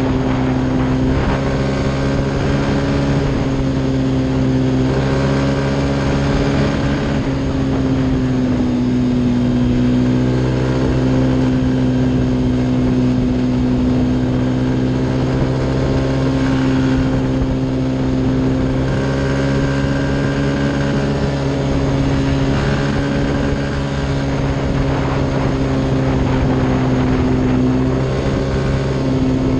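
Motorcycle engine running hard at high, fairly steady revs, its pitch rising and dipping only slightly as the bike holds speed, with wind noise over it.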